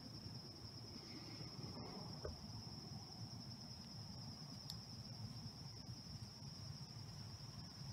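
An insect trilling steadily at one high pitch over a faint low rumble of woodland air, with a couple of tiny clicks midway.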